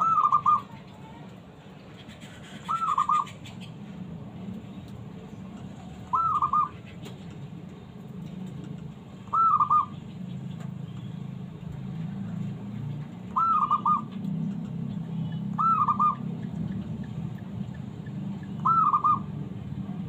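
Zebra dove (perkutut) cooing: seven short calls about every three seconds, each a quick rising note run into a few rapid notes. A steady low hum runs behind them.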